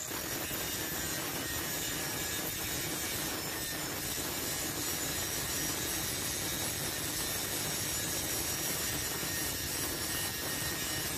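Angle grinder with a cut-off disc cutting through a steel file held in a vise, running steadily with a constant high whine over the grinding noise.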